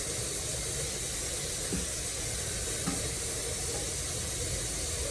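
Kitchen tap running steadily into the sink, with a couple of faint knocks.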